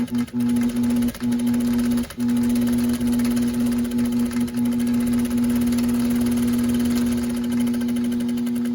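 Sewing machine running a basting stitch to hold two collar pieces together: a steady motor hum that stops and restarts a few times in the first two seconds, then runs on continuously.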